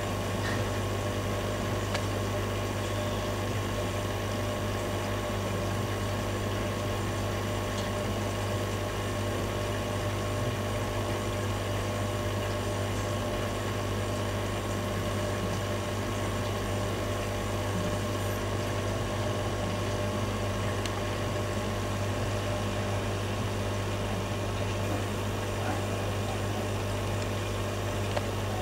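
Steady mechanical hum, even and unchanging, with a strong low drone and several steady tones above it. A few faint clicks sound now and then.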